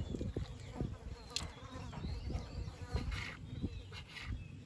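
An insect buzzing close by, steady throughout, with soft taps of a kitchen knife cutting squid on a board.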